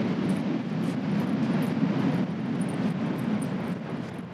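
Steady low roar of ocean surf breaking on the beach, easing slightly near the end.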